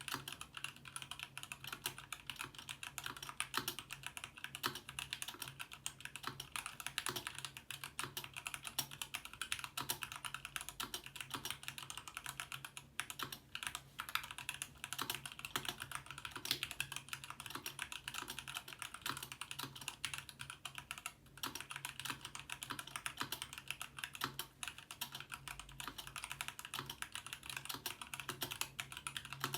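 Steady, continuous typing on a Ramaworks M60-A seq2 60% mechanical keyboard with stock Gateron Black Ink linear switches and GMK keycaps, before modding: a dense run of keystroke clacks.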